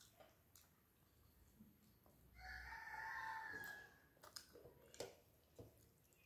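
A rooster crowing once, a single call about a second and a half long starting a couple of seconds in. Around it are faint clicks and smacks of fingers mixing rice on a steel plate, and chewing.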